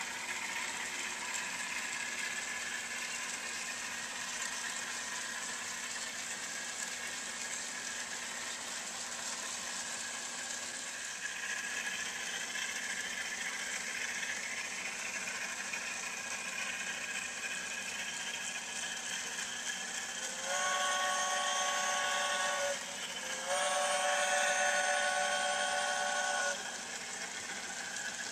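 Model trains running on a layout, a steady whirring hiss of motors and wheels on track. About two-thirds of the way in, the locomotive's sound system gives two long chime signal blasts, the first about two seconds and the second about three seconds long.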